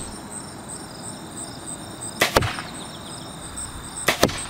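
Insects chirping in a steady pulsing rhythm, broken twice by a sharp double knock, about two seconds in and again near the end.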